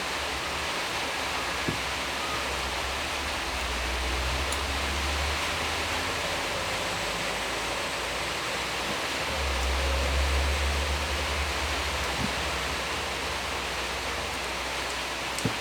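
Steady hiss of background noise, with a low rumble rising twice, the louder one about ten seconds in, and a few faint clicks.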